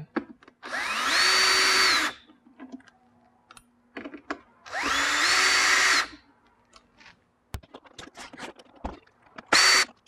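Cordless drill/driver whirring twice, each run rising in pitch as the motor spins up and then holding steady for about a second and a half, backing out the Phillips screws of an electric unicycle's shell. Light clicks in between.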